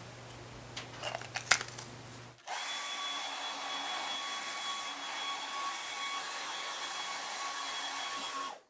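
A low steady hum with a few light clicks, then a steady whooshing hiss with a thin high whine, like a small blower motor, which cuts in abruptly about two and a half seconds in and cuts off abruptly near the end.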